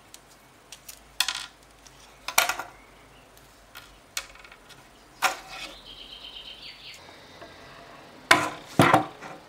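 Small plastic and metal parts of a retractable ballpoint pen clicking and clattering on a wooden workbench as it is taken apart, with a brief metallic rattle from the middle onward. Two louder knocks near the end as a power drill is handled on the bench.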